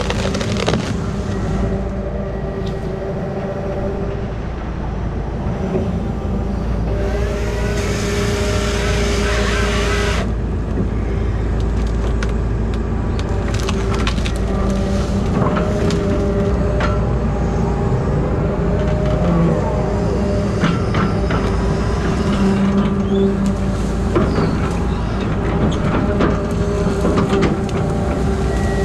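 Grapple saw machine's engine running steadily, with its saw cutting through wood for about three seconds some seven seconds in, and wood cracking and snapping.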